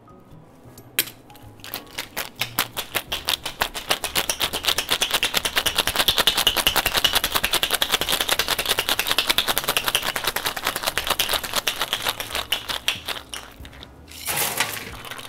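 Ice rattling hard inside a stainless steel cobbler shaker as a cocktail is shaken: a fast, steady run of sharp clacks lasting about twelve seconds. A single clink comes about a second in, before the shaking starts, and a brief burst of noise follows near the end.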